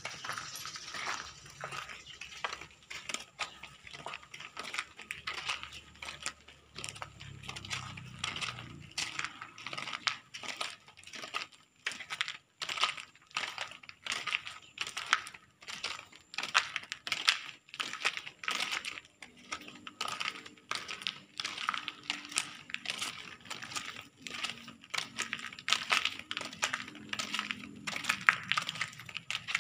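Footsteps in sandals crunching and scraping over broken debris and grit on a concrete floor at a steady walking pace, a continuous run of sharp clicks.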